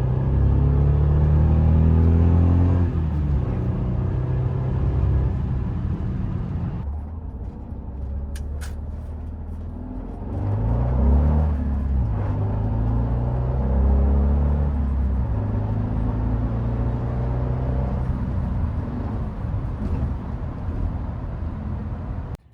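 A 1995 Acura Legend LS coupe's V6 engine pulling through the gears of its 6-speed manual. The engine note climbs, then drops at each shift, and this happens several times.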